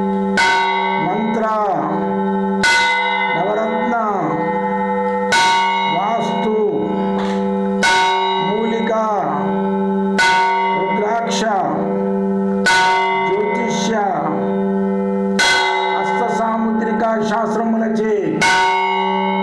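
Devotional background music: a bell struck about every two and a half seconds, each strike ringing on, over a steady low drone, with a melody gliding up and down between the strikes.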